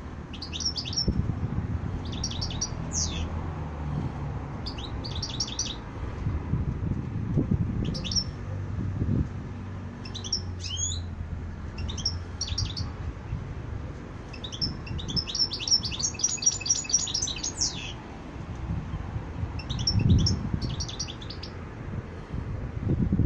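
Caged European goldfinch (jilguero) singing: short phrases of quick, high twittering notes every second or two, with a longer run of rapid notes about fifteen seconds in, over a low background rumble.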